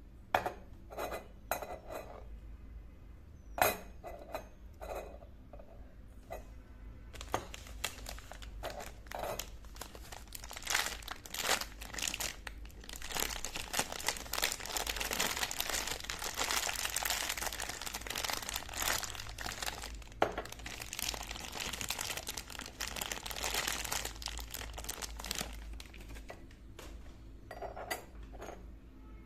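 Packaging crinkling and rustling as miniature kitchen pieces are unwrapped, with separate clicks and light clinks of the small utensils near the start and the end.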